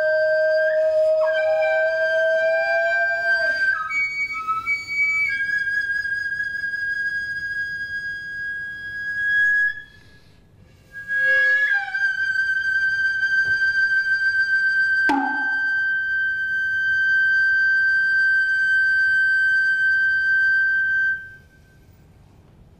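Noh bamboo flute (nohkan) playing long, piercing held notes high in its range, with a short break partway through. Midway through the longest note a single sharp knock sounds, and the flute stops shortly before the end.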